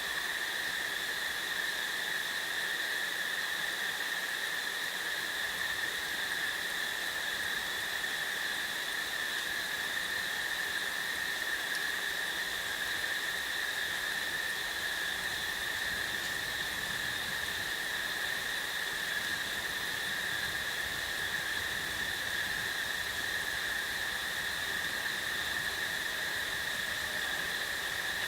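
Steady, unbroken high-pitched chorus of insects, with an even hiss beneath it.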